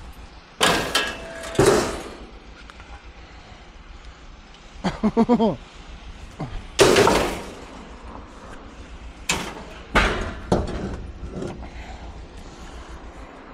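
Scrap metal being thrown onto a loaded truck: a series of loud bangs and clanks, in two pairs early on and a cluster about ten seconds in. There is a short pitched sound about five seconds in.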